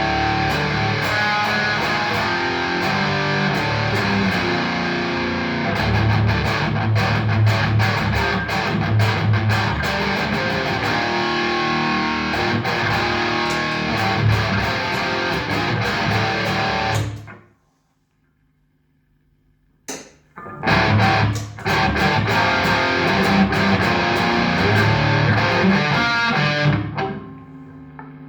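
Overdriven electric guitar played through a Trace Elliot Trident valve combo with 6L6 power tubes, on its high-gain channel. A riff stops about two-thirds of the way in, a click sounds after a short silence, and a second burst of playing dies away into a steady amp hum near the end.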